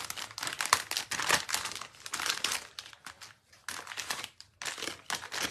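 Rustling and crinkling of dry baby wipes being pulled and handled out of their container, in uneven bursts with a couple of short pauses.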